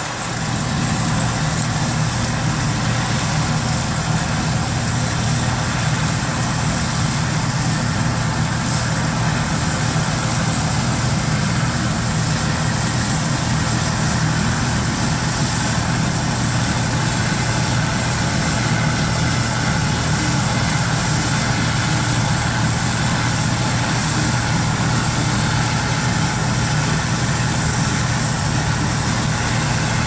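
Gleaner combine harvesting wheat: its engine and threshing machinery running steadily, getting louder just after the start as it comes closer.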